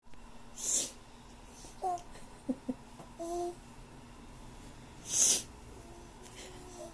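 Two loud sniffs through a runny nose from a cold, one under a second in and one about five seconds in. Between them come a baby's short laughing sounds.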